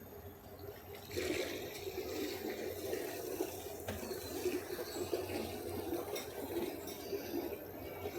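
Water rushing and splashing, rising suddenly about a second in and then carrying on steadily.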